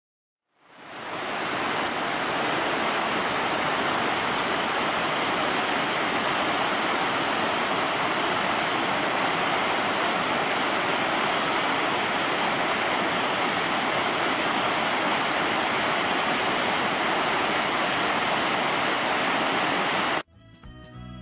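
Mountain stream rushing over rocks: a steady, even rush of water that fades in about a second in and cuts off suddenly near the end.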